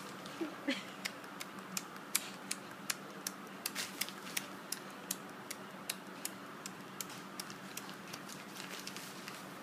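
A run of sharp clicks at an uneven pace, roughly three a second, over a faint steady hum.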